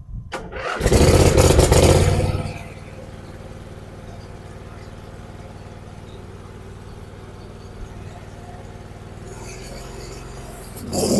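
Dixon Ram zero-turn mower's engine starting: it catches about a second in and runs loud briefly, then settles to a steady idle. Near the end it revs up again.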